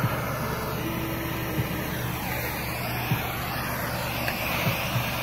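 Handheld propane torch burning with a steady hiss, with a few soft low thumps about every second and a half.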